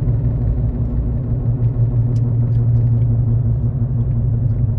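Steady low rumble of a car's engine and road noise heard from inside the moving car.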